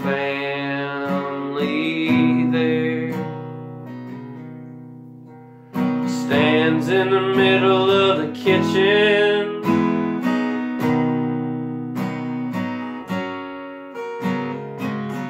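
Steel-string acoustic guitar strummed and picked, with a man singing over it at the start and again around the middle. In between, a chord rings out and fades for a couple of seconds before the strumming comes back in. Near the end the guitar plays on alone.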